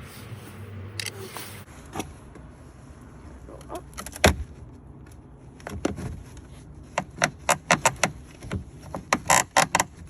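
Clicks, knocks and rattles of plastic and metal as a stock F-150 side mirror is unbolted and wiggled free of the clip and pin that hold it on the door. A short rush of noise comes first, then irregular sharp clicks that come thick and fast near the end.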